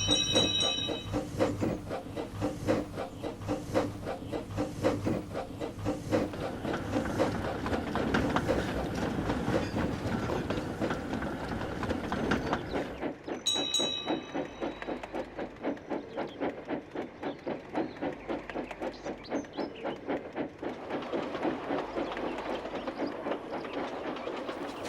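Steam locomotive puffing at a quick, even beat, with a short whistle at the start and again about halfway through. The low rumble under the puffing drops away suddenly at the halfway point.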